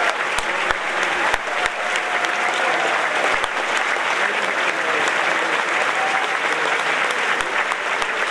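A large audience applauding steadily: many hands clapping at once, with a few voices calling out in the crowd.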